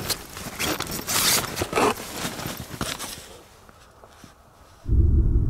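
Nylon fabric swishing and rustling in short bursts as a person in a down jacket moves and brushes the wall of a small tent. About five seconds in a loud, steady low rumble starts suddenly.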